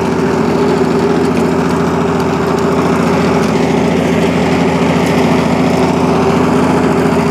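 1982 Lawn-Boy self-propelled mower's two-stroke engine running steadily.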